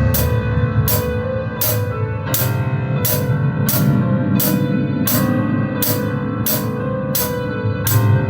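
Drum kit played along with a rock backing track with guitar: sharp cymbal and drum hits on a steady beat, a little under two a second.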